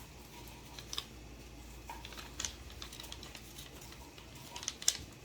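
A few faint, scattered clicks and light rustles of a folded paper airplane being handled, with a sharper pair of clicks near the end.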